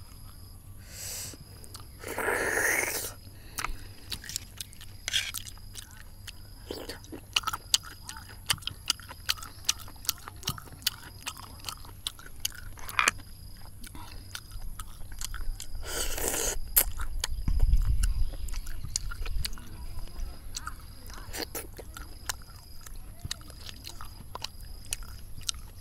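Close-up eating sounds of spicy fried snails: many small sharp clicks as the shells are handled and picked at, chewing, and two louder slurping noises, one about two seconds in and one about sixteen seconds in.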